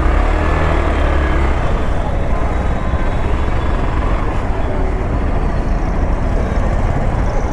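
Hero XPulse 200's single-cylinder engine running as the motorcycle rolls off at low speed, a steady low rumble, with city traffic noise mixed in.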